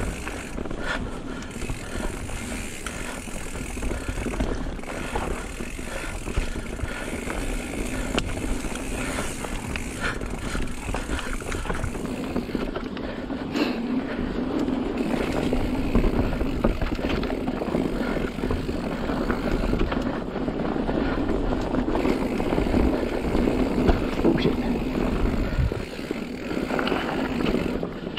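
Mountain bike riding down a rough, rocky singletrack trail: tyres crunching over dirt and rocks, with the bike rattling and many small knocks over a steady low rumble.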